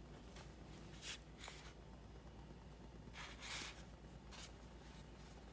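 Faint rustling and scraping of a hand pressing a fish fillet into corn flour on a paper towel, in a few soft brushes, the longest a little after three seconds in.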